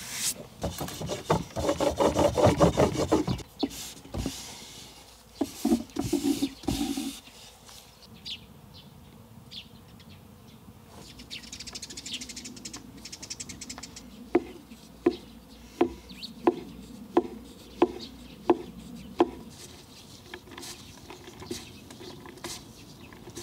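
Hands rubbing and rustling through floured homemade noodle dough for the first few seconds, then a run of eight evenly spaced knife strikes on a wooden cutting board, a little under a second apart, cutting the dough into thin noodle strips.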